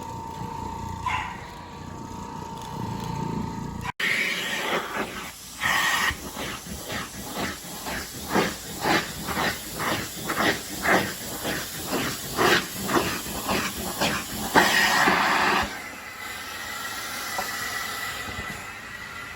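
Carpet-cleaning equipment hissing, with a run of rhythmic strokes at about two a second through the middle, then a steady hiss near the end.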